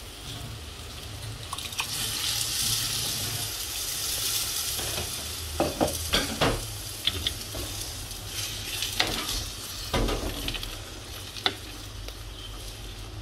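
Cooked dal hitting a hot clay pot of sautéed greens and sizzling, the hiss strongest in the first few seconds. Several sharp knocks and scrapes of a spoon against the pots follow, then a wooden spoon stirring the dal and greens together.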